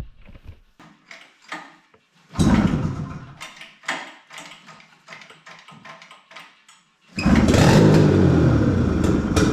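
Polaris Indy snowmobile's two-stroke engine being started, with a Mountain Dew can standing in for the muffler. It gives a short sputter about two seconds in, then some light knocks and rattles. About seven seconds in it catches and runs loud and steady.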